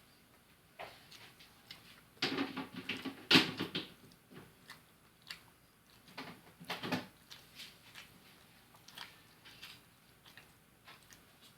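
Close-up eating sounds: chewing and biting on fried fish, with scattered small clicks. There are two louder, crunchier spells, about two to four seconds in and again around seven seconds.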